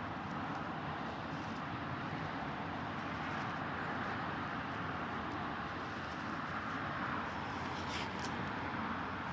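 Steady outdoor background rush with no clear single source, and a couple of faint clicks near the end.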